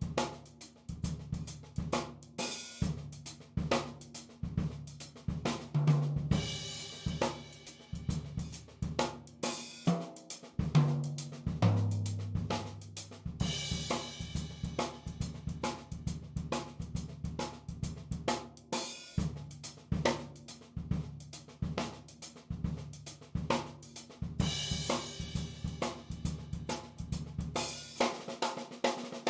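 Background music led by a drum kit playing a steady groove, with hi-hat and cymbals over snare and bass drum.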